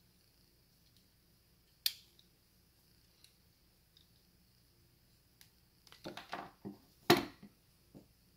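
Metal gel blaster gearbox shell being handled, with its wires rustling: a single sharp click about two seconds in, then a cluster of knocks and clicks near the end as it is set down on a wooden bench, the loudest a sharp click.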